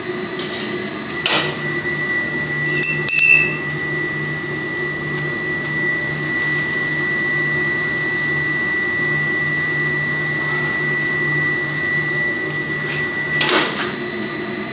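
Forge blower running steadily, keeping the fire going while the workpiece reheats. Metal clinks of tongs and steel against the forge come about a second and three seconds in, and again near the end.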